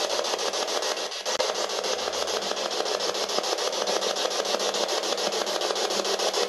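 Ghost-hunting spirit box sweeping through radio frequencies: a steady run of static chopped into rapid, even pulses, played while the group waits for an answer to their question.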